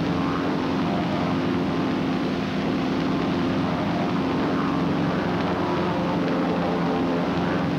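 Steady drone of North American SNJ trainers' Pratt & Whitney R-1340 Wasp radial engines and propellers in level formation flight.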